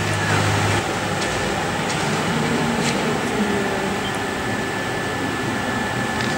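Steady rushing background noise of a large hall, like ventilation, with a faint steady high-pitched whine; a low hum drops out about a second in.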